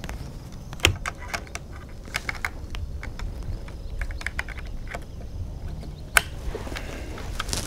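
Small clicks and knocks of a Mossberg 640K .22 Magnum bolt-action rifle being handled on its bench rest, with sharper clicks about a second in and again near the end.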